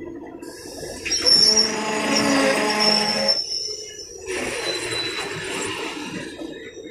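ICF passenger coaches rolling slowly past with their wheels squealing in two loud spells, one from about a second in and another from about four seconds in, over the rumble of the bogies. The train is braking as it slows for a caution order.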